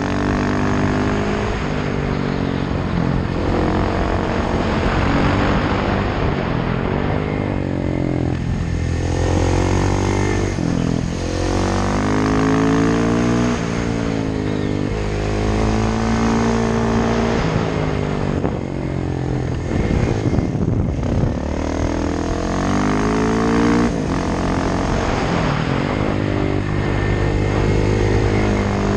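KTM 690 SMC R's single-cylinder engine through an open Sebring exhaust with no dB-killer, revving up through the gears with the pitch dropping back at each shift and on lifting off. Steady wind rush underneath.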